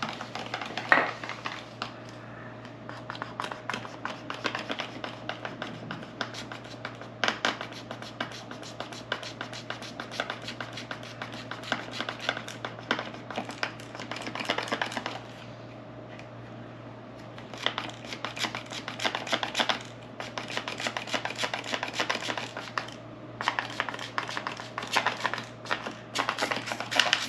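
Hands working with crinkly plastic material: dense, irregular crackling and small clicks, pausing briefly a few times, over a faint steady hum.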